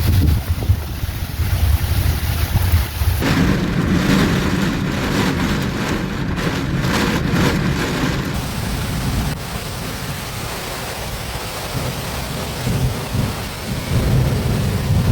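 Thunderstorm: heavy rain and wind with low rumbling. The sound changes abruptly about three seconds in.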